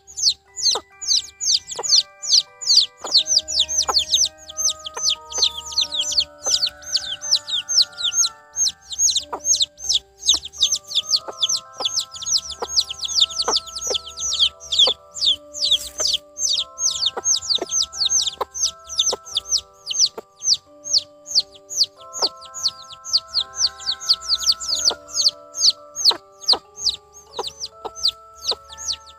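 Domestic chicks peeping nonstop: a rapid, even string of short high peeps, each falling in pitch, about three or four a second. Background music with held melodic notes plays underneath.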